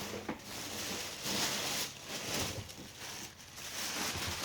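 Packaging rustling and crinkling in uneven swells as a shipping box is opened and an item is lifted out, with a few soft knocks of the box.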